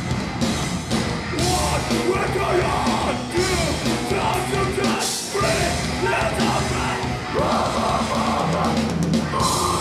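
Metal band playing live: distorted electric guitars, bass and drums, with a vocalist shouting and screaming into the microphone.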